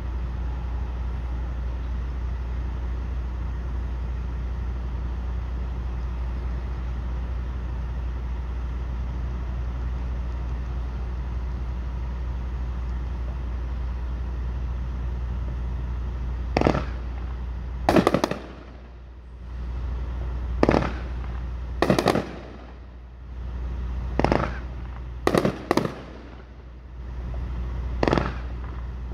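A steady low hum fills the first half. Then aerial fireworks burst overhead about eight times, sharp bangs a second or two apart, some in quick pairs.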